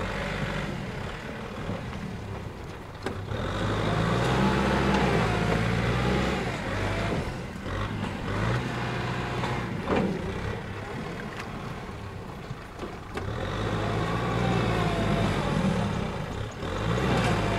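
Kubota M6040SU tractor's four-cylinder diesel engine working under load, hauling a loaded trailer through deep mud. It revs up and louder twice, about four seconds in and again near the end, with a few sharp knocks, the loudest about ten seconds in.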